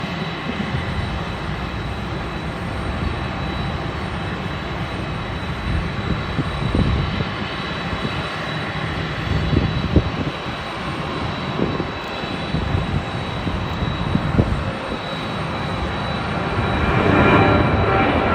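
Skymark Airlines jet airliner taking off, its jet engines running at high power: a steady rumble with a thin high whine, growing louder near the end.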